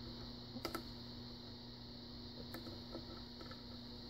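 Faint metallic ticks of a steel lock pick working the pins of a pin-tumbler lock cylinder during single-pin picking: a pair of clicks just under a second in and another about two and a half seconds in, over a faint steady hum.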